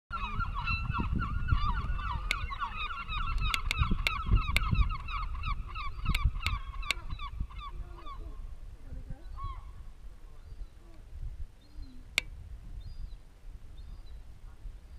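A flock of geese honking, many overlapping calls at first, thinning to scattered honks about halfway through. A steady low rumble runs underneath, with a few sharp clicks.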